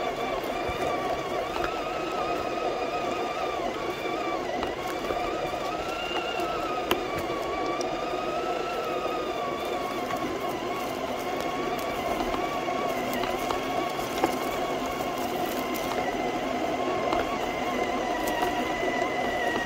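Traxxas TRX-6 six-wheel RC crawler's electric motor and gear train whining as it crawls, heard from on board the truck, the pitch wavering up and down with the throttle. A few light clicks and ticks sound along the way.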